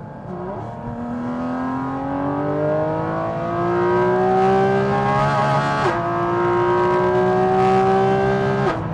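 Porsche 718 Cayman GT4 RS's 4.0-litre flat-six accelerating hard, heard inside the cabin on the stock exhaust with the exhaust valves closed. The engine note climbs steadily, drops abruptly at a quick PDK upshift about six seconds in, then climbs again before falling away near the end.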